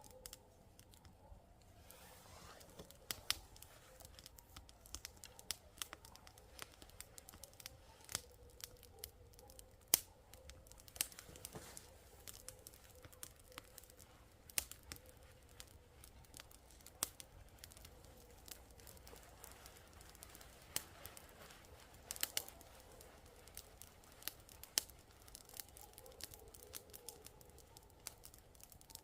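Paper being crumpled and torn to start a fire, irregular crackles and snaps throughout.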